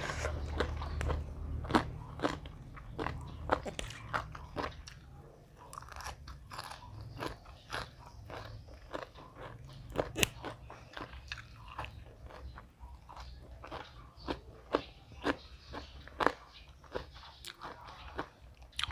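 Close-miked crunchy chewing and biting of food, a mouthful of som tam (green papaya salad) crunching in irregular sharp snaps. A low steady hum sits under the first few seconds.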